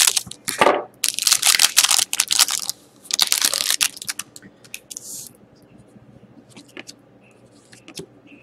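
Scissors cutting open a foil trading-card pack and the wrapper crinkling loudly as the cards are pulled out. After about five seconds it gives way to softer clicks and rustles as the cards are handled one by one.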